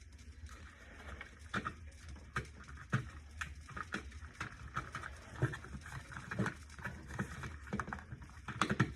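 Plastic smoke detector scraping and clicking against its ceiling mounting plate as it is pushed on and twisted to seat it: a string of irregular short clicks and rubs over a low steady hum.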